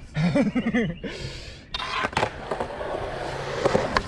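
Skateboard wheels rolling on asphalt through a burning powder flare, with a rushing noise and a couple of sharp clacks of the board near the end as the skater pops a trick. Short excited shouts come in the first second.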